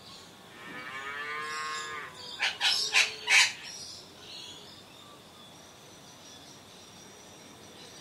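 A drawn-out, low animal call lasting over a second, then four loud sharp cracks in quick succession about two and a half seconds in.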